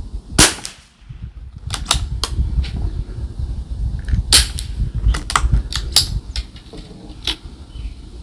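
A single .22 LR rifle shot from an Anschutz 1761 MSR bolt-action rifle firing SK Rifle Match, the loudest sound, just under half a second in. It is followed by a string of sharp clicks and knocks, with a low rumble throughout.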